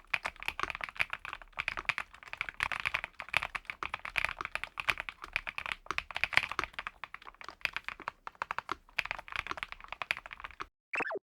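Fast, continuous typing on an ATK VXE V75PRO gasket-mounted mechanical keyboard with PBT double-shot keycaps: rapid, dense keystroke clacks. It stops abruptly near the end, followed by a short falling swoosh.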